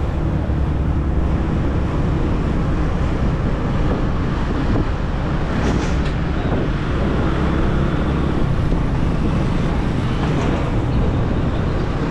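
Motor scooter's small engine running steadily as it is ridden, a constant low hum under the noise of the tyres and street.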